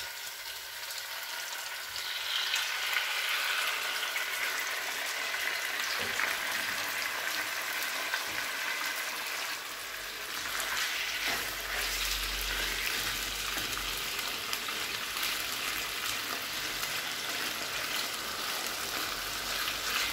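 Boneless chicken pieces sizzling in hot oil and fried ginger-garlic paste in a nonstick frying pan: a steady frying hiss that gets louder about two seconds in and holds.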